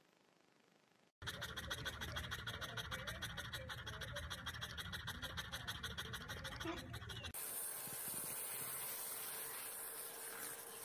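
A French bulldog panting rapidly in a fast, even rhythm, starting about a second in. Near the end this gives way to a steady hiss with a faint hum.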